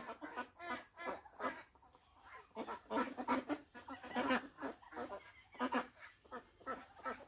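A flock of white domestic ducks quacking, many short calls overlapping one another in an irregular stream.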